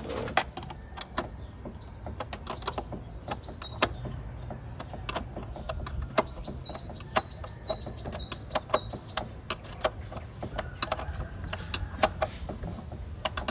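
Irregular metallic clicks and clinks from a hand wrench being worked on an engine bolt. Small birds chirp in repeated trills, a couple of seconds in and again from about six to nine seconds.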